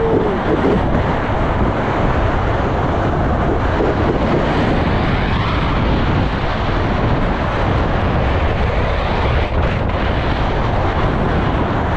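Steady rushing noise of a fast ride down a long dry slide: wind buffeting the camera's microphone and the sled running over the slide's mat track.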